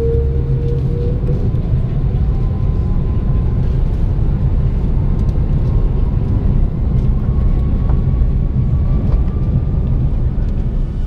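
Steady low rumble of a moving vehicle, with a faint whine that slowly rises in pitch.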